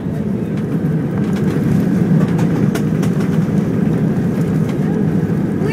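Airliner's landing roll heard from inside the cabin: a loud, steady roar of engines and rushing air that swells about a second in and then holds.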